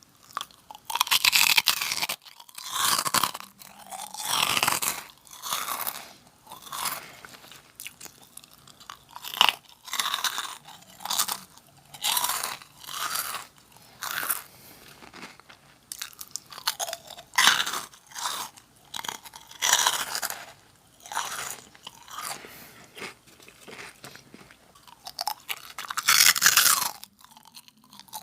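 Close-miked crunching and chewing of Nongshim Jagalchi, a crisp fried wheat snack, in repeated crackly bites and chews with short pauses between them.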